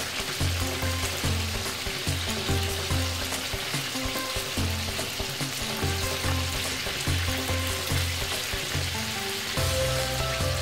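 Grouper pieces frying in hot oil in a pan, a steady crackling sizzle, under background music with a steady bass beat.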